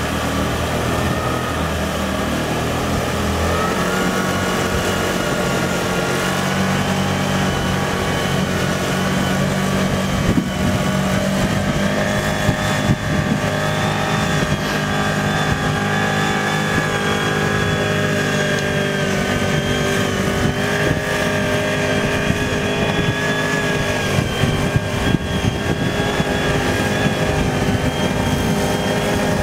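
Engine of an amphibious all-terrain vehicle running steadily under load while driving through water, its pitch shifting a few times, with the churn and splash of the water around it.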